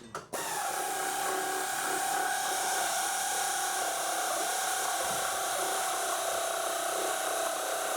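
Power drill running steadily under load, starting about a third of a second in, as it drives a large fastener into the heavy slab table.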